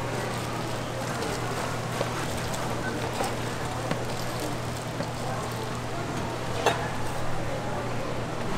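Spicy noodles tossed in sauce by gloved hand in a stainless steel mixing bowl, with a few sharp metallic clinks of the bowl, the loudest about two-thirds of the way through, over a steady low hum.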